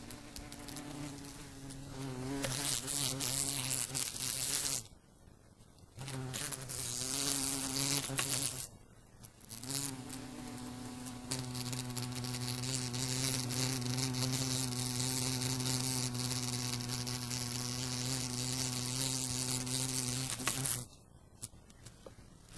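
A wasp buzzing against a window pane in bouts. The buzz wavers at first, stops briefly about five and nine seconds in, then holds steady for about ten seconds before cutting off near the end.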